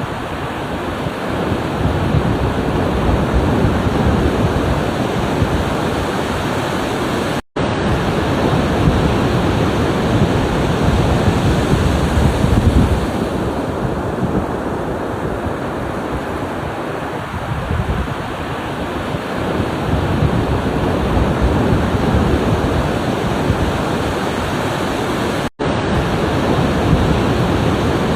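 Ocean surf breaking and washing on a shore, a steady rush that swells and eases, with wind rumbling on the microphone. The sound cuts out for an instant twice, a little over seven seconds in and near the end.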